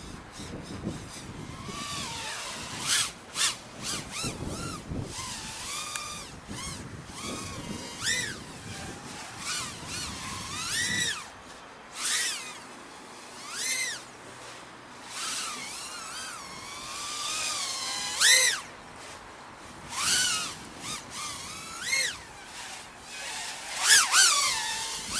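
Micro brushless FPV quadcopter's 3100kv motors and 3030 propellers whining through repeated throttle punches on a 4S battery. Each punch is a whine that rises and falls in pitch, about one every second or two.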